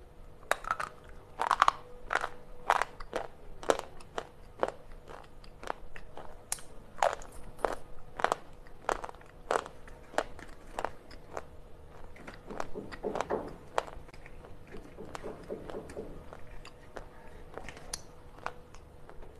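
Slate pencils crunched and bitten between the teeth: a series of sharp crunches, about one or two a second, loudest in the first few seconds, with a denser crackling stretch past the middle.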